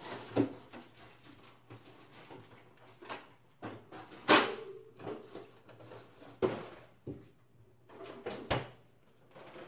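Rummaging in a refrigerator's top freezer compartment: a series of knocks and rustles as frozen packages are moved and a box of frozen waffles is taken out, the loudest about four seconds in. The freezer door is shut with a thud later on.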